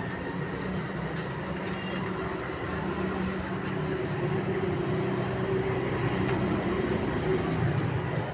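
A steady mechanical drone that grows somewhat louder through the middle, with a few light clicks over it.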